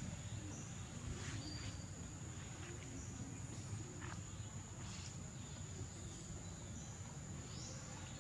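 Insects droning steadily at one high, even pitch, over a low background rumble, with a few faint short rustles or chirps.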